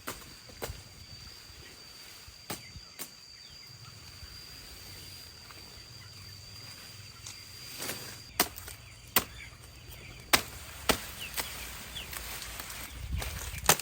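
Sharp chops of a blade striking a cutting surface, a few scattered at first, then louder and about one every half second to a second from about eight seconds in: feed ingredients being chopped for chicken feed. A thin steady high whine sounds under the first part and stops partway through.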